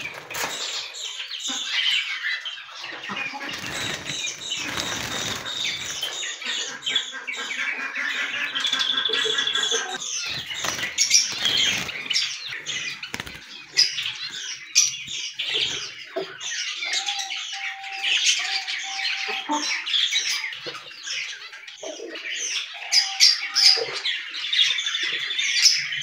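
Young Java sparrows fluttering and flapping their wings inside a wire cage as they are caught by hand, with light clicks and rattles and many small birds chirping throughout.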